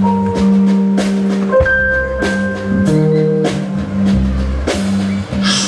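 Live band playing a song: a drum kit keeps a steady beat under a bass line, keyboards and saxophone.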